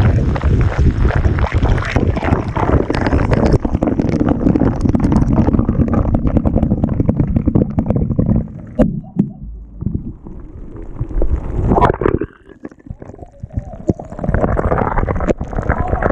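Carbonated water fizzing and gurgling right at the microphone: a dense crackle of bursting bubbles over a low rumble. It dies down briefly twice and picks up again near the end.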